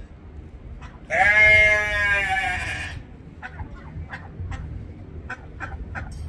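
One long bleat from a farm animal, starting about a second in and lasting about two seconds, its pitch falling slightly. Afterwards comes a run of short, sharp clicks.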